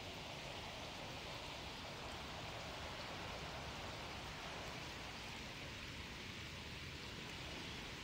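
Steady rush of a small stream's running water, an even hiss with no distinct splashes or events.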